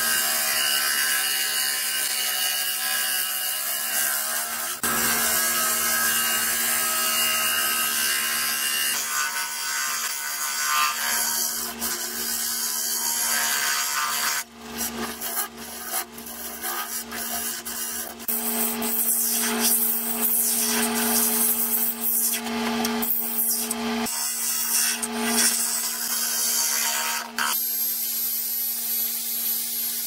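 Laguna 1836 wood lathe spinning a walnut-and-resin platter while a carbide finishing tool with a negative-rake insert scrapes the face. It gives a steady hissing cut over the lathe's hum, choppier in the second half.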